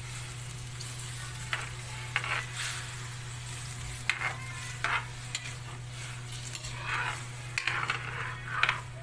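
Garlic, onion, ginger and carrots sautéing in a pan, stirred with a spatula: short scraping strokes against the pan, more frequent near the end, over a steady low hum.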